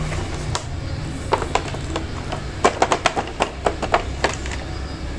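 Hands handling a boxed toy train set: about a dozen sharp taps and clicks, most of them in a quick cluster in the middle, over a steady low hum.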